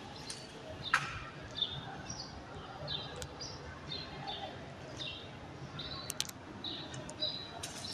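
Small birds chirping in short, repeated high notes, with a few sharp clicks, the loudest about a second in.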